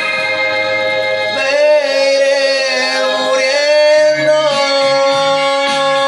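A man sings over a backing track of sustained keyboard chords and a stepping bass line, holding a long, wavering note from about a second in until about four and a half seconds.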